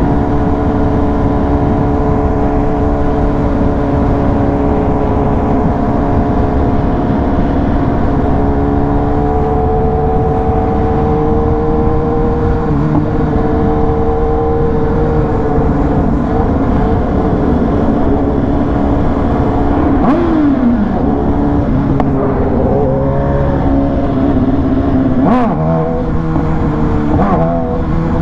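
A vehicle engine running at a steady speed over road and wind rumble. Its note dips and shifts in pitch a few times near the end.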